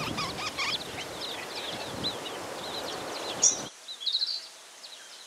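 Small birds chirping: many short, quick calls over a steady outdoor hiss, which cuts off suddenly about three and a half seconds in. After it comes a quieter background with a brief quick run of chirps.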